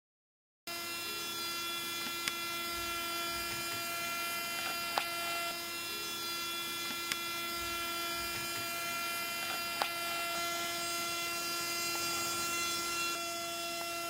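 Small hobby DC motor spinning a plastic air propeller, a steady electric whine with an even pitch that starts abruptly under a second in, with a few light ticks along the way.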